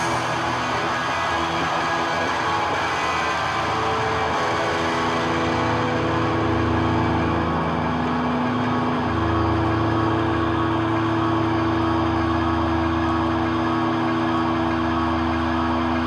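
Live rock band's droning outro: a loud wall of distorted electric guitar noise and feedback, with long held notes that shift pitch a few times.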